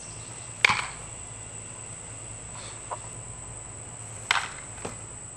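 Sharp knocks of wooden practice weapons and bodies clashing as two people grapple over a wooden staff: a loud knock about a second in and another about four seconds in, with lighter knocks near three seconds and just before the end.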